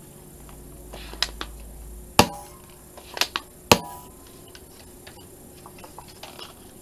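Plastic mechanism of a Nerf N-Strike Mega BigShock blaster clicking as it is handled: a few light clicks about a second in, then two loud sharp snaps with a brief ringing, about a second and a half apart.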